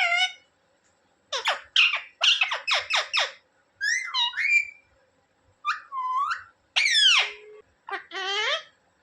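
Indian ringneck parrot calling in a series of short, shrill calls that sweep up and down in pitch, with a quick run of them about a second and a half in, then single calls spaced out through the rest.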